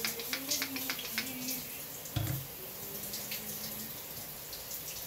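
Wet, gel-coated hair being worked and squeezed between fingers close to the microphone: irregular soft crackles and squelches, with one dull bump a little past two seconds.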